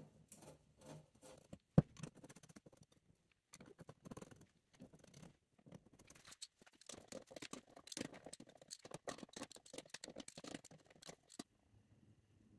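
Hands working at an engine's round intake housing: irregular scraping, rubbing and small clicks of parts against metal. One sharp click about two seconds in is the loudest sound.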